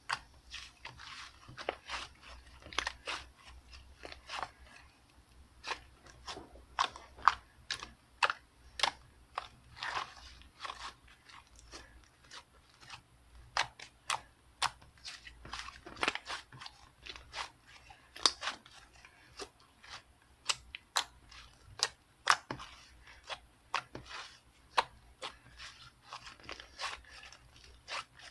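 Slime being squished and pressed by hand, giving irregular crisp clicks and crackling pops, a few each second.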